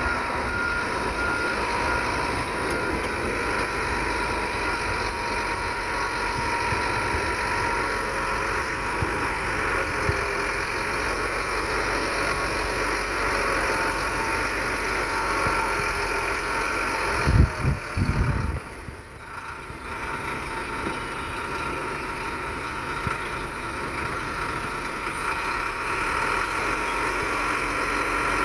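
Heavy earthmoving machinery's diesel engine running steadily, with a couple of heavy low thuds about 17 seconds in and the engine sound briefly dropping just after.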